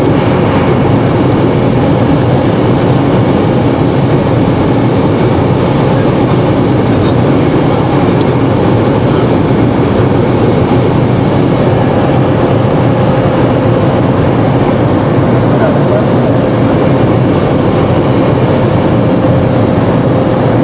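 Cockpit noise of a Cessna Caravan floatplane in flight: its single turboprop engine and propeller running as a loud, steady noise heard from inside the cabin. A faint steady tone joins in about halfway through.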